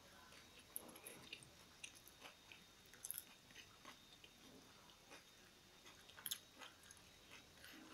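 Faint chewing of a mouthful of soft tortilla wrap with hummus and vegetables: scattered small mouth clicks and smacks, a little louder about three seconds in and again just after six seconds.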